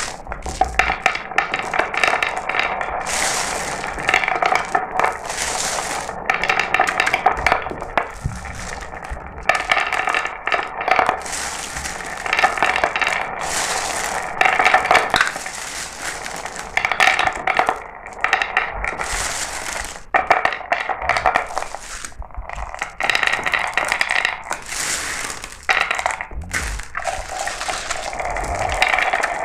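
Glass marbles rolling and clacking down a marble run track: a continuous rattle of rapid clicks and small impacts with a light ringing, swelling and thinning as the marbles come through in groups.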